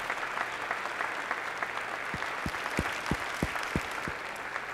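Audience applauding at the end of a talk. In the second half, a run of about seven short low thumps, roughly three a second, sounds through the applause.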